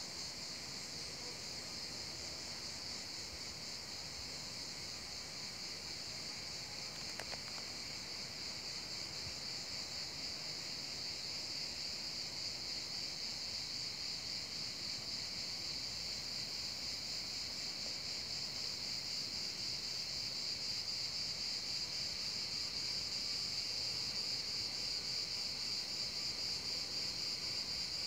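Steady, high-pitched chorus of insects, slowly getting louder.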